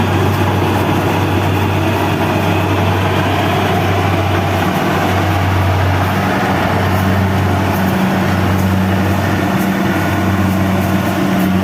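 Kubota rice combine harvester's engine and machinery running steadily, a loud continuous mechanical din with a low hum; a second, higher engine tone joins about six seconds in.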